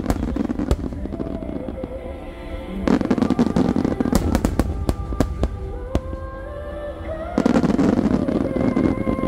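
A large fireworks display: sharp bangs throughout, with two dense spells of rapid crackling and booming, about three seconds in and again near the end. Music plays steadily underneath.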